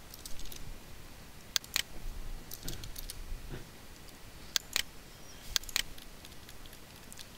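Computer mouse clicks and keyboard keystrokes while values are entered: three pairs of sharp clicks, with fainter taps in between.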